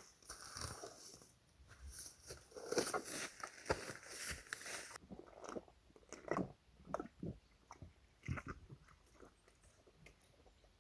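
An animal close to the trail camera making dense crunching, chewing-like clicks for about five seconds. These give way to scattered single clicks and knocks that die away near the end.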